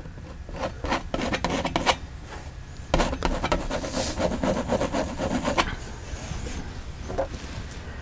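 Painting knife scraping and rubbing oil paint across a stretched canvas in short strokes, in two spells, with one brief last stroke near the end.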